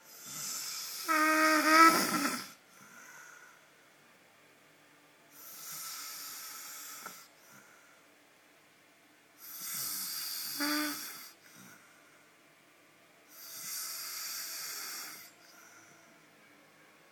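A man snoring in his sleep: four long, noisy snores about four seconds apart. The first and third turn into a pitched tone partway through, and the first is the loudest.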